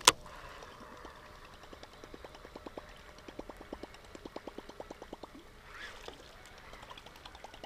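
A sharp click right at the start, then the rapid, even clacking of a Chaos Tackle Big Mama Lil Sister chopper-style topwater bait being retrieved across calm water, about seven clacks a second, with a short break near the end before it picks up again.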